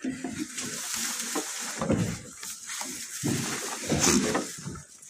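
Dry hay rustling and crackling as it is grabbed and pulled by hand at a wooden hay feeder, in irregular handfuls.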